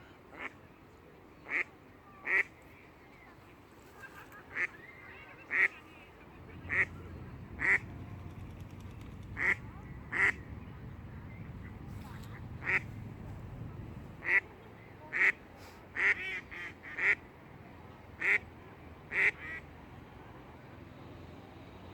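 Duck quacking: a long run of short, single quacks at uneven intervals, about seventeen in all.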